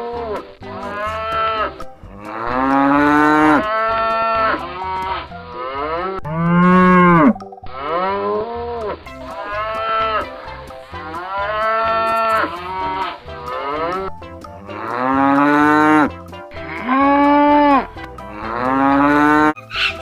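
Cattle mooing: a long series of drawn-out moos, one after another with little pause, each rising and then falling in pitch.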